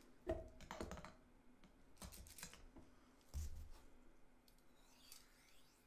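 A few soft clicks and knocks of a metal cleaning rod and its small cloth-holder attachment being handled and fitted together, with a faint scrape near the end.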